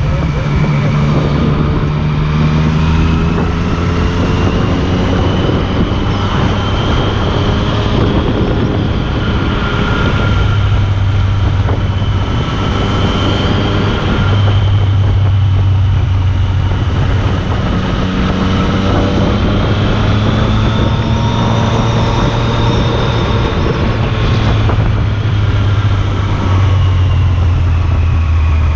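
Yamaha FZ-09's inline three-cylinder engine running through an aftermarket Akrapovič carbon-fibre exhaust while the bike is ridden through easy turns. The engine note rises and falls repeatedly as the throttle is opened and closed.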